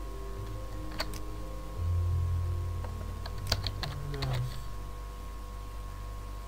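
Computer keyboard keystrokes: a single click about a second in, then a quick run of keys around the middle, over a low hum.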